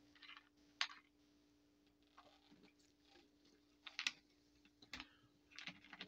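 Near silence broken by a few faint, scattered clicks and small mouth sounds: a person swallowing and smacking their lips after taking a drink.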